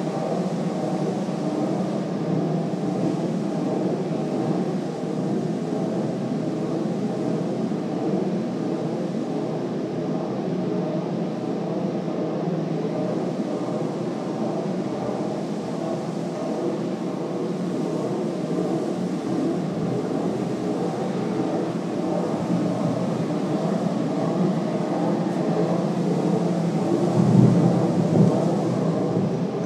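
A steady low rumbling noise that swells briefly near the end.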